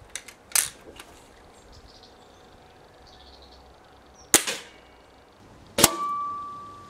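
A Baikal IJ-22 spring-piston break-barrel air rifle: a few clicks and a snap as the barrel is closed and locked about half a second in, then the sharp report of the rifle firing a little over four seconds in. Near the end a second sharp report, the pellet striking the target, is followed by a ringing tone that fades over about a second.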